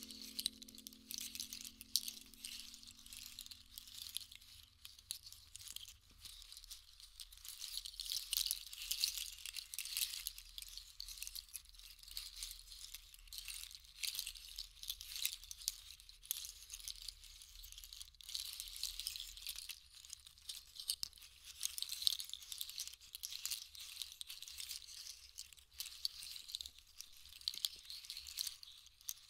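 Soft, dense high rattling wash from a shaken percussion instrument, swelling and easing every few seconds. Over the first few seconds the low ringing of a struck instrument dies away beneath it.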